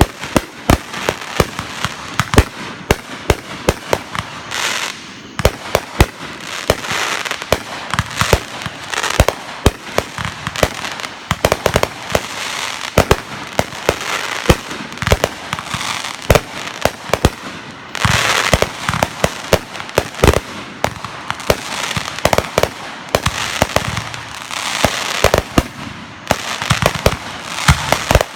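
Fireworks going off in a continuous barrage: many sharp bangs and cracks, several a second, overlapping with steady crackling and hissing.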